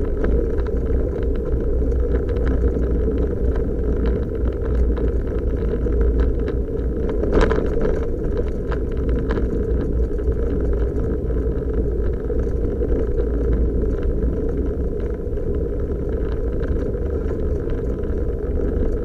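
Inside the cabin of a Suzuki Jimny JB23 driving over a rough gravel road: a steady low rumble of its 660 cc turbo three-cylinder engine and tyres on gravel. Scattered small knocks and rattles from the bumpy surface run through it, with a sharper knock about seven seconds in.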